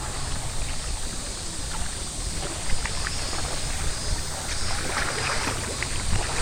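Wind buffeting the microphone outdoors: a steady low rumble under an even rushing noise, with a few faint ticks.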